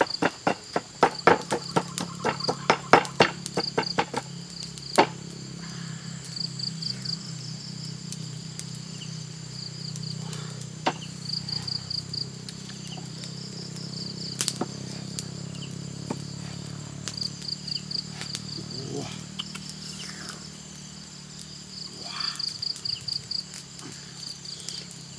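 Pestle pounding chillies in a mortar: rapid, even knocks, about three or four a second, that stop about four seconds in, followed by only a few scattered knocks. Insects chirp throughout in short, rapid high trills that repeat every second or two.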